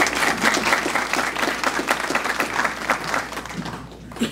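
Audience applauding after a speech, the clapping dying away near the end.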